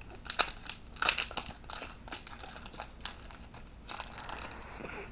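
Trading card pack wrapper crinkling and being torn open, a run of irregular crackles.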